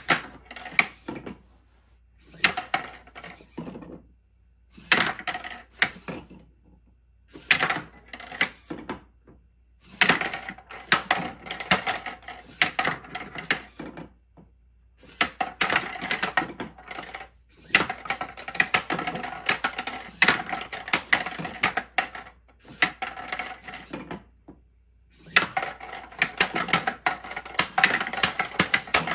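Plastic ping-pong-size balls being knocked across and bouncing on a small plastic tabletop game court, clattering in bursts of rapid clicks that each last a second or two, with short pauses between volleys.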